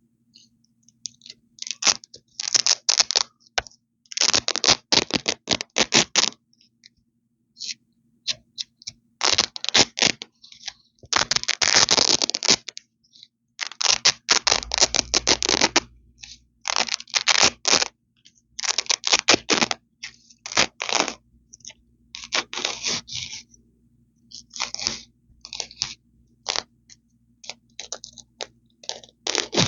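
Hook-and-loop (Velcro) strips ripped apart close to the microphone: a run of about a dozen crackly tears, each lasting up to a couple of seconds, with short pauses between them.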